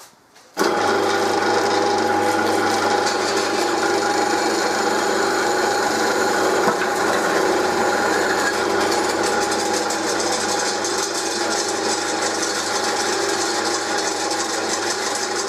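Pillar drill switched on about half a second in and running steadily at its higher speed, a large twist drill boring into a steel upright: a steady motor hum with the grinding of the cut over it.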